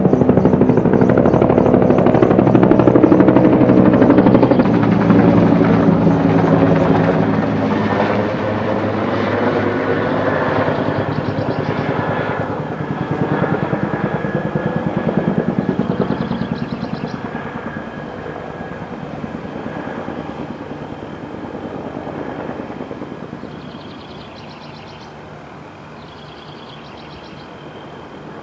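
A group of military helicopters flying overhead, their rotors giving a fast, even chop, loudest at first and fading steadily as they fly away, the pitch falling as they pass.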